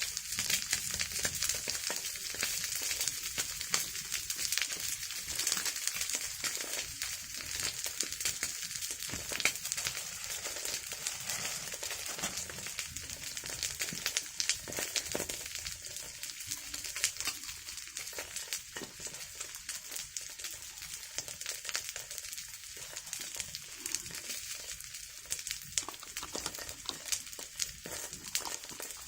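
Food frying in hot oil in a pan, a steady sizzle with many small crackling pops.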